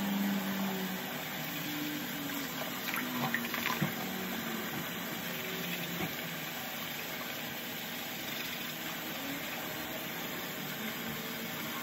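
Bathroom tap running steadily into the sink, with a few light clicks about three to four seconds in.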